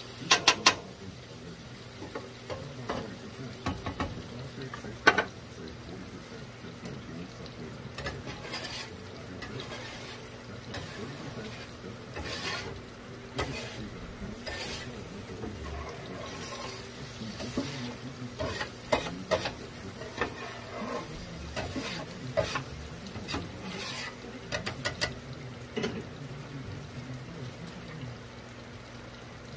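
Beef sizzling and simmering in sauce in a cast iron skillet, stirred with a utensil that clacks and scrapes against the pan again and again, with a quick cluster of loud clacks about half a second in.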